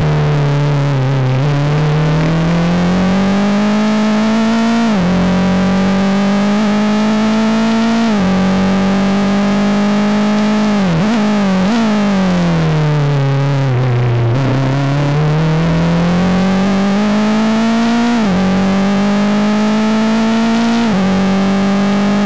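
Open-wheel race car engine heard through an onboard camera, running hard with its pitch climbing slowly through each gear and dropping sharply at the upshifts, about five times. About halfway through the pitch sinks steadily for a couple of seconds, then climbs again.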